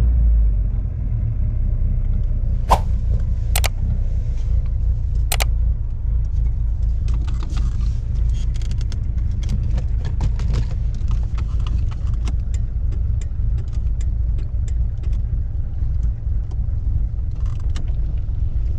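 A Lada 2106's four-cylinder engine running steadily with a low rumble. Three sharp clicks come in the first six seconds, and lighter ticks follow later.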